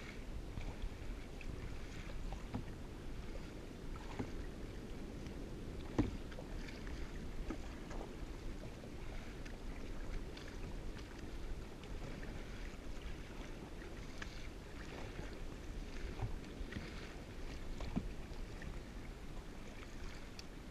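Kayak paddling: paddle blades dip and splash roughly every two seconds, and water laps and swishes against the plastic hull, over a low rumble of wind on the microphone. About six seconds in there is a single sharp knock, the loudest sound.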